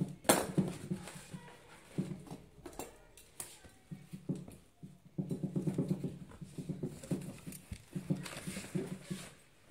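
Packing tape being slit with a box cutter and torn off a cardboard box: bursts of low, raspy scraping and tearing, with a sharp crack just after the start.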